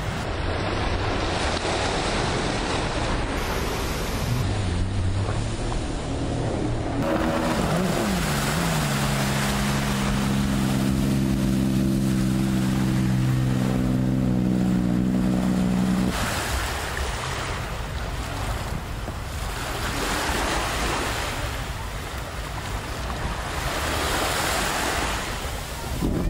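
Racing jet ski engines on open sea under a rush of wind on the microphone and water spray. In the middle an engine holds a steady drone for about eight seconds, after a brief pitch swing, then cuts off sharply. Swelling rushes of wind and water follow.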